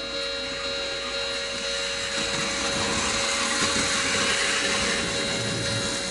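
O-gauge model train running past with a motor whir and a fast clatter of wheels on the track, growing louder about two seconds in, over the steady electronic warning tones of the model level crossing.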